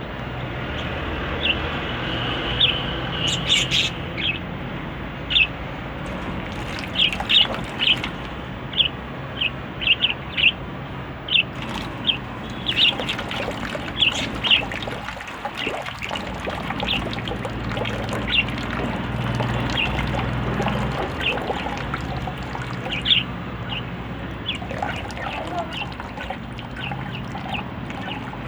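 Birds chirping over and over with short, high calls at irregular intervals, over a steady low background rumble.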